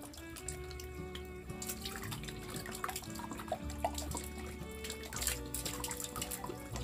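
Background music with held notes, over water running and splashing.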